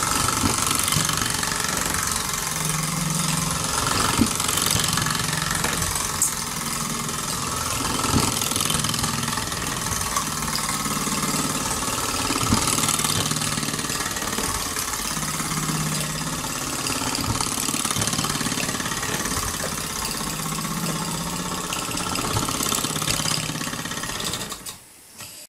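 Mamod SR1A live-steam model steam roller running, its small single-cylinder steam engine working steadily with a constant hiss of steam. The sound cuts off suddenly just before the end.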